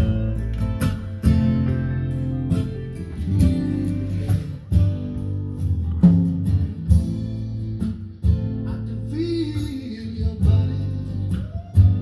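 A guitar-led song with singing, played back in the room through a pair of Bose 301 Series II bookshelf speakers driven by a Pioneer SX-950 stereo receiver.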